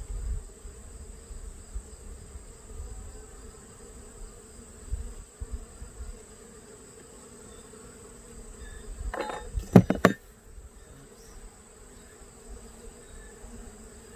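Honeybees buzzing in a steady drone around an open Langstroth hive, from a colony that has turned defensive. About nine to ten seconds in, a quick cluster of sharp knocks is the loudest sound.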